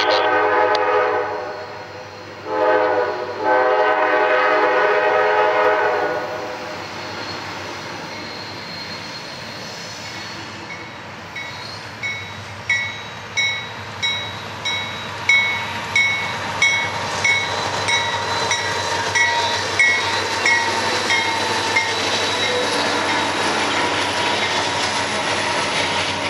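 Diesel freight locomotive's air horn sounding two blasts: a short one, then a longer one of about three seconds. From about ten seconds in a grade-crossing bell rings steadily, about one and a half strikes a second, fading near the end as the double-stack intermodal cars roll past with steady wheel-on-rail noise.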